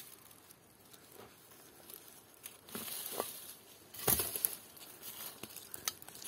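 A knife and hands digging into stony soil among dry leaves and twigs at the base of a çiriş (Eremurus) plant: irregular scrapes, rustles and crackles, loudest just after four seconds in.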